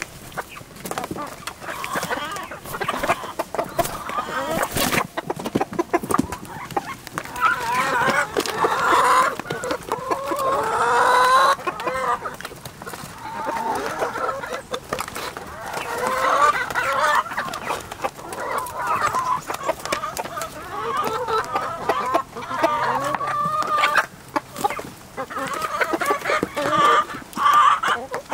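A flock of backyard chickens clucking, many short overlapping calls going on all the while.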